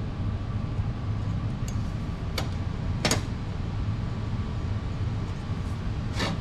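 Bent metal tubing pieces clinking a few times against a steel welding table as they are handled and checked for square, the loudest clink about three seconds in. A steady low hum runs underneath.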